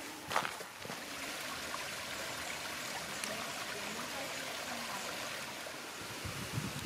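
A footstep or two on a gravel path at the very start, then a small woodland brook splashing down a little cascade over mossy rocks, a steady rush of water. A few soft low thuds near the end.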